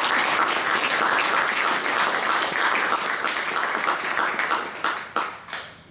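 Audience applauding, a dense patter of many hands that thins to a few last claps near the end and stops.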